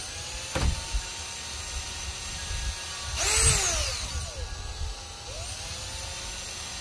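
Cordless drill driving a self-tapping screw into the end of a roof rail. The motor whines up and slows down in pitch in several short runs, loudest about three seconds in, with a sharp knock about half a second in.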